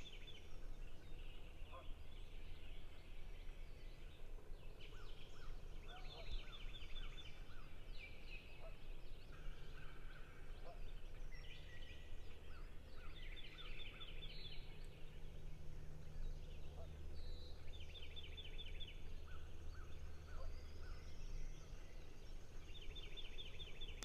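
Birds calling in the woods. A high, fast trill repeats every four to five seconds, with scattered short chirps and a few short runs of lower notes.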